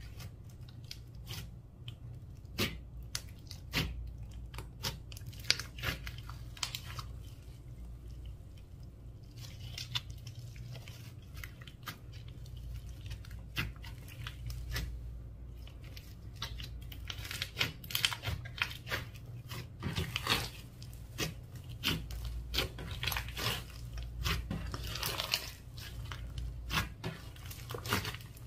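Slime with mini balls mixed through it being squished and stretched, giving a dense run of irregular wet clicks, pops and crackles over a steady low hum. The crackling gets busier in the second half.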